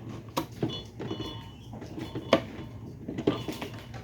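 A few light knocks and clicks at irregular moments, the loudest about two and a half seconds in, as items are handled.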